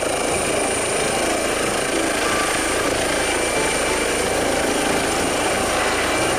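Eurocopter EC135 air ambulance helicopter lifting off and climbing away. The turbine gives a steady, thin high-pitched whine over the dense, even rush of the rotors.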